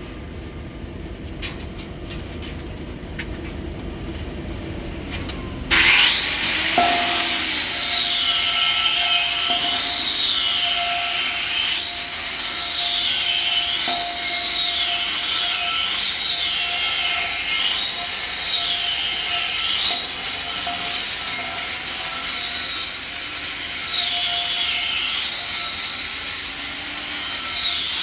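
Angle grinder grinding steel on a welded pipe joint, starting suddenly about six seconds in; its high whine rises and falls as the disc is pressed against the metal. Before it starts, only a low background rumble.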